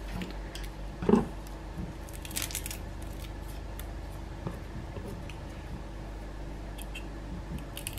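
Faint papery crackles and small ticks as garlic cloves are peeled by hand and with a knife tip, over a low steady hum, with one brief louder sound about a second in.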